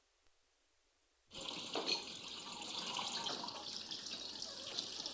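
Steady hiss of water, most likely a kitchen tap running or water hitting a hot pot. It starts abruptly about a second in.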